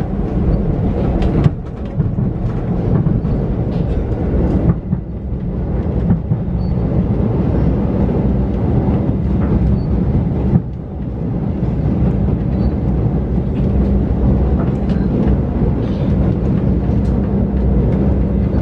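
KA Pangandaran passenger train running: a steady rumble of wheels on rails with a constant low hum, and a few sharp knocks.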